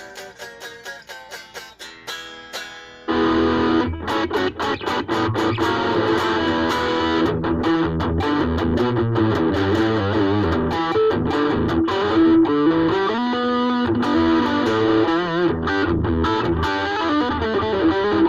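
Ibanez AXS42 electric guitar, fitted with a vintage capacitor, played through an amplifier: a few single picked notes, then from about three seconds in much louder, denser playing with distortion.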